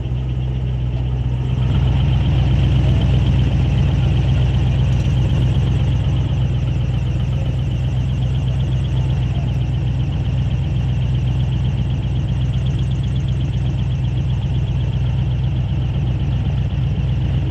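Airboat engine and propeller running steadily, stepping up a little in loudness about a second and a half in.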